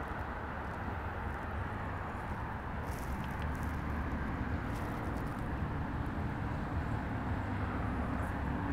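Steady low rumbling noise of wind on the microphone at the open shoreline, with a faint steady hum joining about two and a half seconds in.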